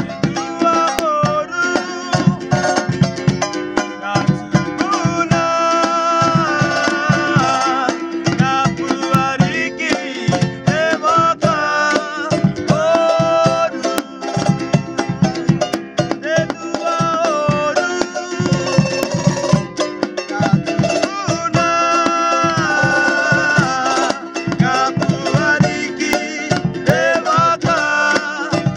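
Men singing a Cook Islands song in harmony, accompanied by two rapidly strummed ukuleles and a hand drum keeping a steady beat.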